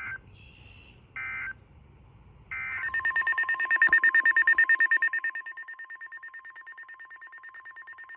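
Three short bursts of EAS/SAME digital data tones (the end-of-message code) closing the previous weather radio broadcast. About three seconds in, NOAA weather radio receivers start a rapid, pulsing electronic alert beep that is loud at first and drops to a lower level about halfway through.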